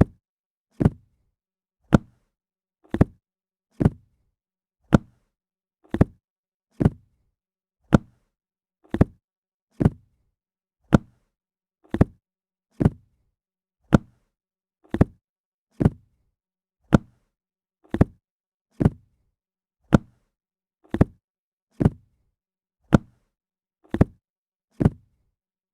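A book dropping flat onto a hard surface, one short thud, repeated at an even pace of about one a second.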